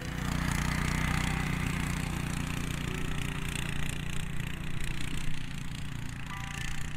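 Small engine of a motorized towing sled (motosobaka) running steadily.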